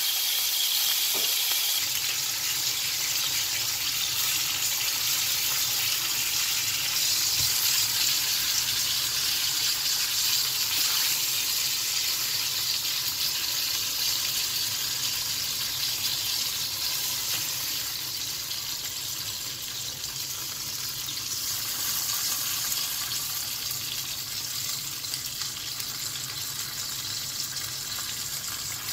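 Hilsa fish steaks sizzling as they shallow-fry in hot oil in a nonstick pan: a steady hiss that softens a little past the middle.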